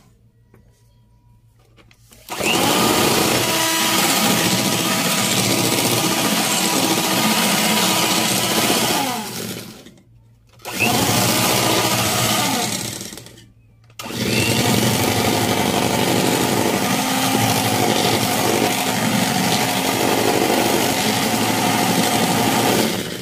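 Electric hand mixer running, its beaters whirring through cream and condensed milk in a stainless steel bowl with a steady motor whine. It starts about two seconds in, stops briefly twice and starts again, and stops near the end.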